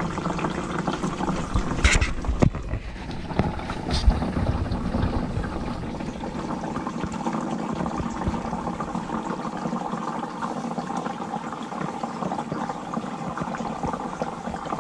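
Engine oil pouring steadily out of the drain hole of a 5.9 Cummins diesel's oil pan, with a few sharp knocks about two and four seconds in.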